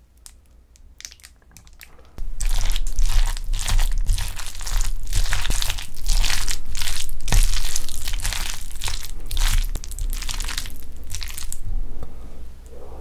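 A spoon stirring and pressing rice with sauced boneless chicken and mayonnaise on a steel plate. Close microphones pick it up as a loud, wet, crackling mash in uneven strokes. It starts suddenly about two seconds in and eases off near the end.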